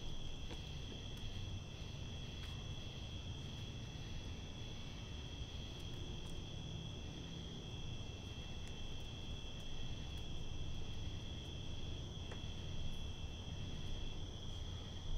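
A steady night-time insect chorus, several unbroken high trills at different pitches, over a low rumble, with a few faint ticks.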